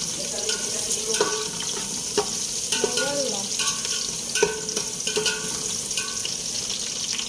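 Food sizzling as it is stir-fried in a pan. A spatula scrapes and knocks against the pan at irregular intervals of about half a second, and each knock rings briefly.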